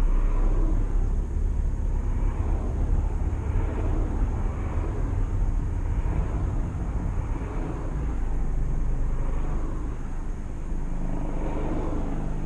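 Steady in-cabin road noise of a Skoda Superb on the move: a low rumble of tyres and engine as the car slows in traffic behind a lorry.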